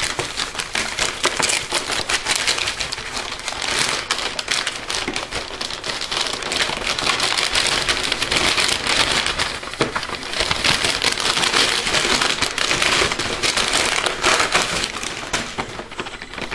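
Christmas wrapping paper being torn and crumpled off a gift box by hand: a dense, continuous crackling and rustling that eases a little near the end.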